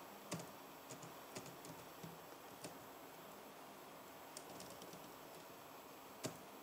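Faint, slow, irregular keystrokes on a computer keyboard: single key clicks spaced about half a second to a second apart, with a longer pause in the middle.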